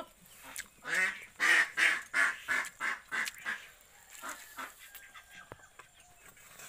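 Waterfowl calling in a quick run of about nine nasal honks, about three a second, which fade out around the middle. Softer biting and chewing sounds follow as a poori is eaten.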